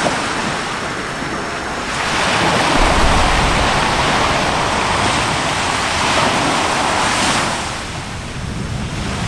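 Roar of an explosive volcanic eruption: a loud, steady rushing noise that swells about two seconds in, with a deep rumble shortly after, and eases off near the end.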